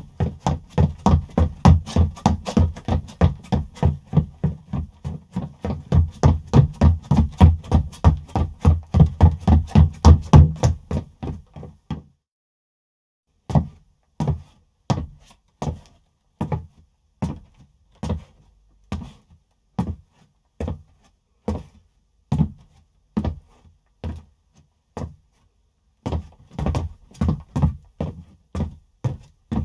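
Footsteps of a person running on a hard surface, a quick even pattern of footfalls for about twelve seconds. After a short break the steps come slower and farther apart, then quicken again near the end.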